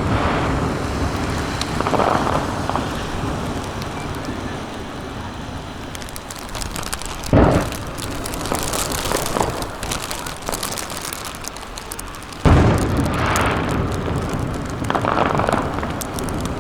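Aerial fireworks shells bursting: two loud booms about seven and twelve seconds in, each rolling on in a long echo, over a continuous rumble of further bursts with crackling sparks.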